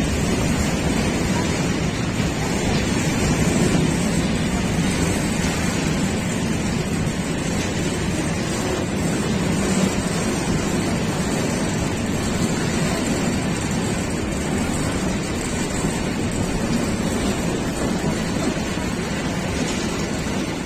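Steady running noise of a passenger train heard from aboard: wheels rumbling on the rails, with wind rushing past the microphone.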